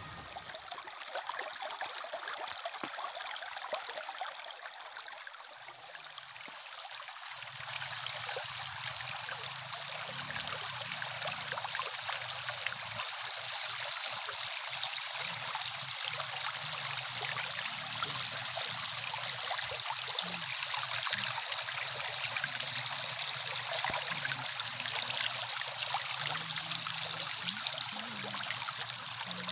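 Muddy rain floodwater flowing fast over stones in a stream bed: a steady rush of water.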